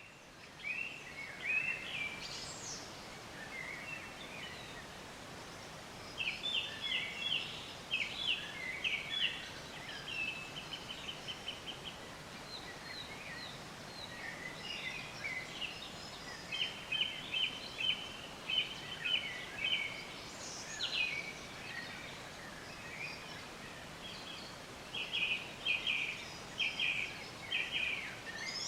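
Birds calling outdoors: runs of short, rapidly repeated chirping notes, several birds, over a steady background of outdoor noise.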